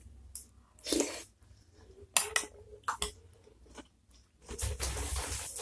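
Close-miked mouth sounds of a person eating a spoonful of tofu from spicy bakso soup: wet chewing with several short, sharp smacks, then a longer noisy stretch of chewing near the end.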